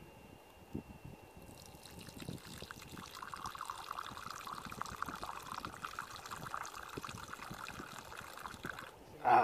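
A drink poured into a wooden kuksa cup in a steady trickle. It starts faintly, runs for about six seconds and stops just before the end, where a short loud sound cuts in.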